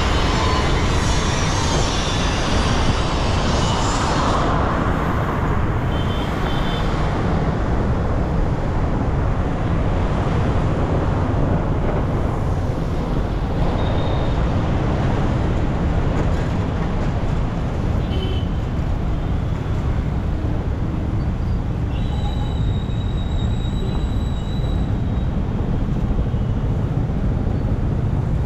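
Road and traffic noise heard from a car driving along a city highway: a steady, deep rumble of tyres, engine and wind, with a brief high-pitched tone about three-quarters of the way through.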